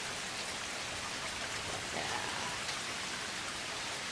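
Rain falling steadily, an even hiss of rain on surfaces.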